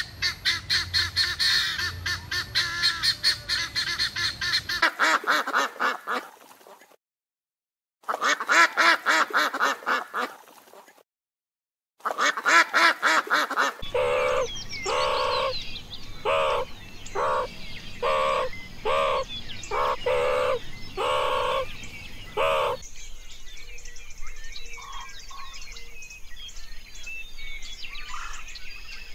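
Birds giving loud honking calls, repeated quickly in several short clips with brief silent gaps between them. In the middle comes a steady series of honks, about one and a half a second. Near the end the honks stop, leaving fainter chirps and outdoor ambience.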